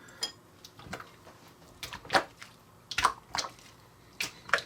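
Sticky Coca-Cola slime being squeezed and pulled by hand, giving about eight short, wet squelching pops at irregular intervals.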